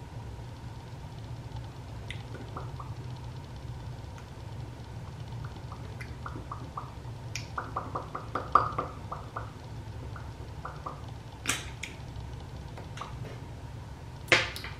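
Lips pressing and smacking together over freshly applied red lipstick and lip gloss: a run of small wet clicks about halfway through, then two sharper clicks later, over a steady low hum.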